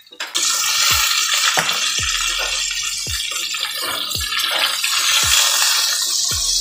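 Hot oil sizzling loudly in an enamel roasting pan as a whole browned chicken is turned in it with tongs; the sizzle starts suddenly just after the start and then holds steady. Background music with a steady beat plays underneath.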